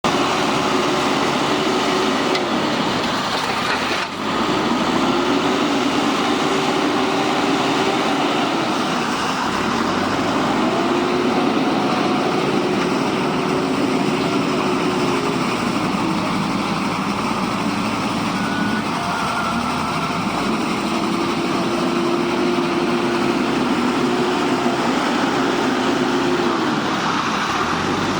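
JCB backhoe loader's diesel engine running steadily, rising in pitch and holding for several seconds before dropping back, about three times, as it works under hydraulic load.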